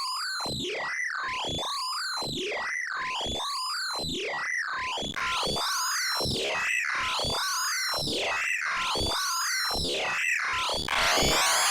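Pitch-shifted synthesizer audio edit: layered synth tones sweeping up and down in repeated arcs about once a second, getting louder about five seconds in and thicker and louder near the end.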